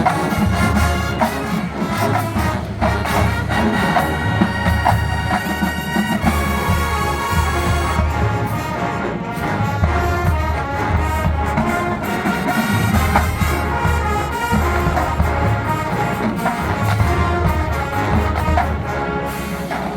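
Marching band playing, brass carrying the melody over a strong, pulsing low bass line.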